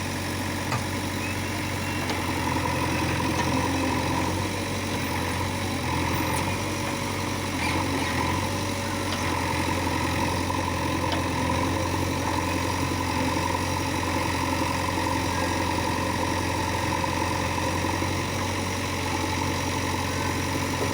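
Diesel engine of heavy machinery running steadily at an even speed, with no revving, giving a low, constant hum.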